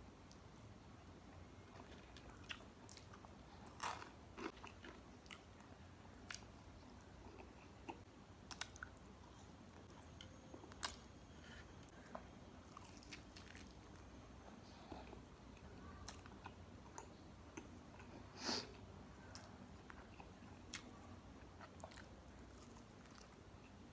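Close-up mouth sounds of someone chewing and biting into crispy food, with scattered short crunches and clicks; the sharpest come about 4, 11 and 18 seconds in.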